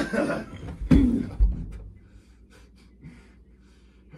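Wrestlers grunting and yelling as one lifts the other, then a heavy low thud about a second and a half in as they slam down together onto an air mattress. Faint breathing and rustling follow.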